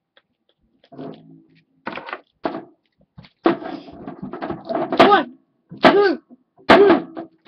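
A person's voice in short bursts, grunts and exclamations, as plastic wrestling action figures are worked by hand in a toy ring, with a few sharp knocks from the figures striking the ring in the second half.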